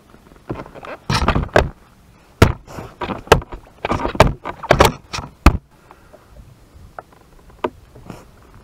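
A rapid series of loud, sharp knocks and bumps, irregular and bunched over about five seconds, followed by a few fainter taps.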